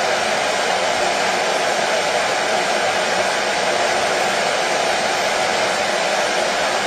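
Hair dryer running steadily: an even, unbroken rush of fan and airflow, strongest in the middle range, with no change in pitch or level.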